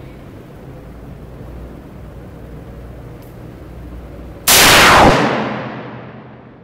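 A single .44 Magnum revolver shot about four and a half seconds in, very loud, ringing out and fading over about a second and a half under the range's concrete roof.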